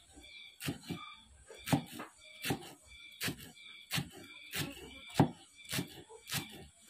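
A kitchen knife chopping chives on a wooden cutting board: a steady run of sharp knocks as the blade cuts through to the board, about four every three seconds.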